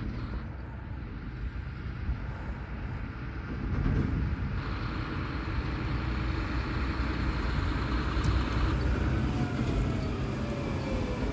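John Deere 7R 310 tractor's diesel engine running as it drives across the field toward the listener, pulling a fertilizer spreader, getting louder about four seconds in as it nears. Near the end a falling whine as the tractor slows to a stop.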